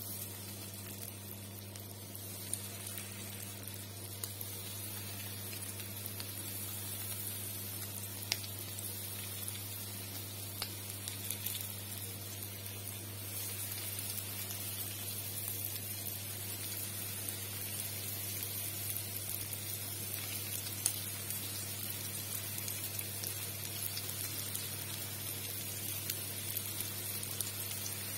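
Breadcrumb-coated chicken strips sizzling in hot vegetable oil in a frying pan: a steady hiss with scattered sharp pops, growing a little louder about halfway through as more pieces go in.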